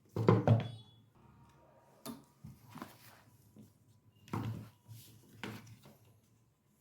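Knocks and clunks of parts being handled and fitted into a microwave oven's metal chassis: a loud double knock with a short metallic ring just after the start, then several lighter knocks.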